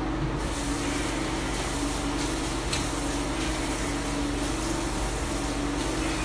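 Bathroom ceiling exhaust fan running: a steady rushing noise with a low, even hum.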